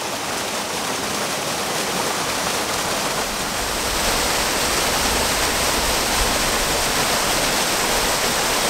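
A small mountain-creek waterfall pouring into a rock plunge pool, a steady rush of falling water that grows louder and deeper about four seconds in.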